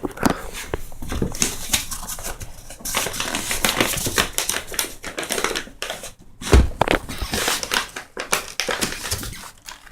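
Cardboard firework case being opened and handled: continuous rustling, crinkling and scraping of cardboard and packing, with many small clicks and one louder thump about six and a half seconds in.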